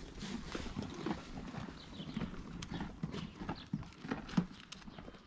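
Footsteps on hard ground: irregular light knocks and scuffs, a few to the second.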